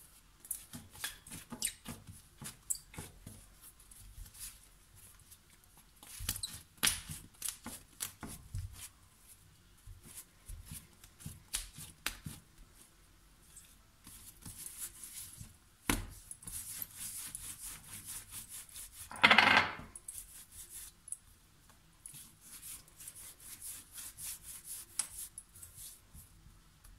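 Hands rolling and pressing soft bread dough on a floured granite countertop: soft rubbing, light pats and small taps. A single louder sound about two-thirds of the way through lasts under a second.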